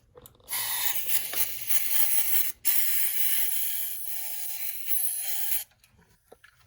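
A loud, steady hiss of spraying air or gas, lasting about five seconds with a brief break about halfway through.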